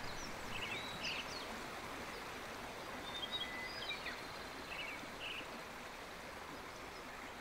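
Steady, soft outdoor rushing noise with a few high, short bird chirps scattered through it, mostly in the first few seconds.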